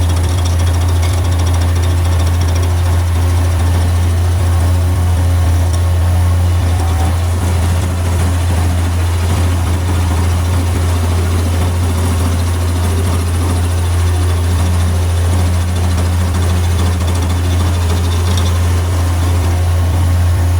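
Bobcat MT100 mini track loader's 25-horsepower engine running steadily at a constant pitch, driving a Bobcat SG30 stump grinder attachment.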